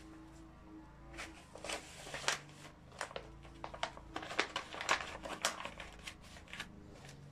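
Rustling and light clicking of objects being handled, a quick run of small taps and crinkles with a faint low hum underneath.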